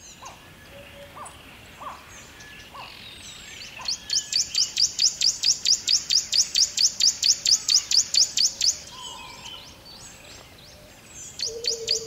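Wild forest birds calling. One bird sings a long, fast series of high, sharp chirps, about six a second, beginning about four seconds in and lasting about five seconds. It starts again near the end. Softer, scattered bird calls come before it, and a low whistle that falls slowly enters near the end.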